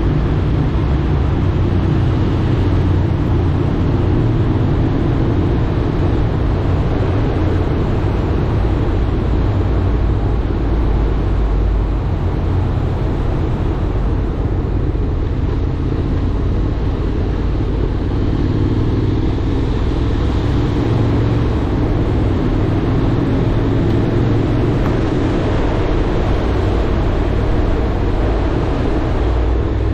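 Honda X-ADV being ridden at a steady speed: a constant low rumble of engine and road noise, with a faint engine note that wavers a little in pitch.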